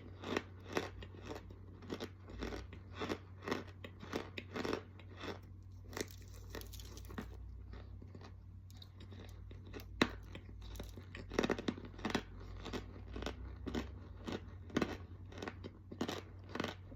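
Close-up chewing of crunchy bite-sized food, a steady run of sharp crunches about two a second. The crunches thin out for a few seconds in the middle, with one sharp click about ten seconds in.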